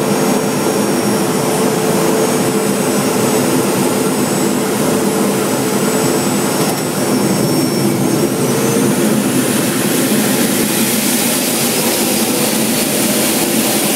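Steady, loud cockpit noise of a T-45 Goshawk jet trainer in flight: its Rolls-Royce Adour turbofan running with steady tones under a wash of rushing air. The engine tones shift about eight seconds in, and the high hiss of airflow grows louder toward the end.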